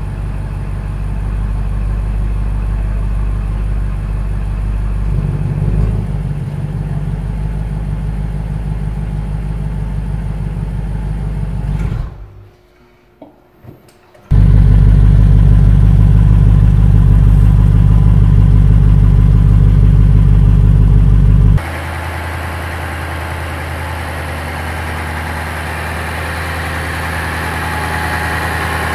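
BMW M850i's 4.4-litre twin-turbo V8 idling steadily, then shut off for about two seconds. It restarts with a sudden loud flare, holds a loud high idle for about seven seconds, then drops abruptly to a quieter, steady idle with more whir in it.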